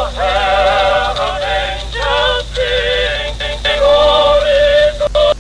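Muffled, old-recording-sounding music with a slow, wavering sung melody over a steady low hum. It breaks up into short choppy cuts near the end.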